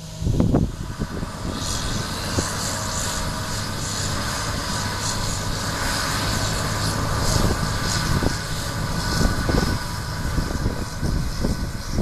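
2013 John Deere combine harvesting wheat with its draper header, heard close by alongside a John Deere tractor pulling a grain cart: a steady, heavy diesel drone with the whir of the threshing machinery. The sound sets in loudly just after the start.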